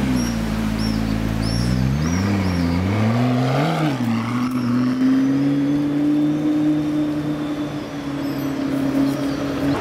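McLaren P1's twin-turbo V8 running at low speed as the car pulls away, with two short rises in revs about two and three and a half seconds in, then a steady, slowly rising drone.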